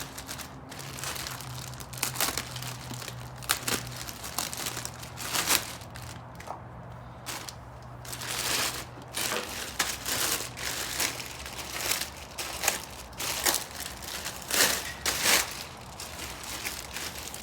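Plastic packaging and tape being stripped off a boxed steel pull-up bar: irregular crinkling and crackling, with sharper rips and louder clusters now and then.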